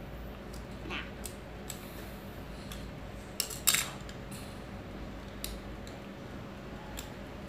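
Small plastic Lego bricks clicking and tapping as they are pressed together and set down on a tile floor: scattered light clicks, with a sharper couple a little past halfway.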